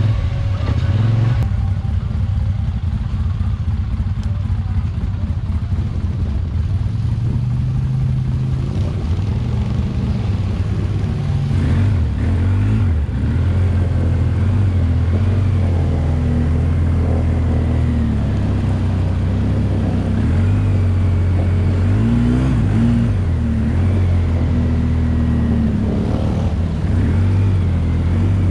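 Polaris Sportsman Highlifter ATV engine running as the quad is ridden, its pitch rising and falling several times with the throttle.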